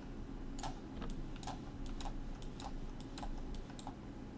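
Light clicking of computer keyboard keys, about three clicks a second at uneven spacing.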